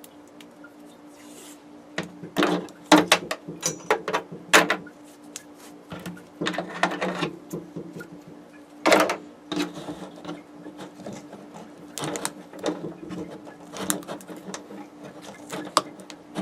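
Irregular clicks and knocks of electrical wire connectors being handled and pushed together, in clusters of rapid taps, over a steady low hum.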